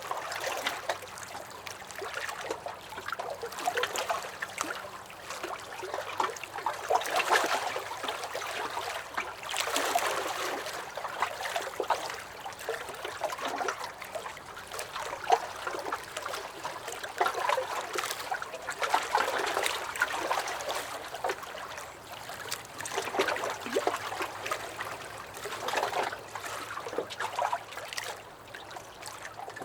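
Small lake waves lapping and sloshing against a dock, an irregular run of splashes and gurgles that swell and fade every second or two.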